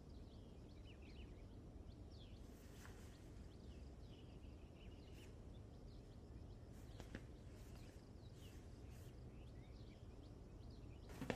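Faint outdoor ambience: small birds chirping on and off over a low steady background hum, with a few light ticks and one sharp knock right at the end.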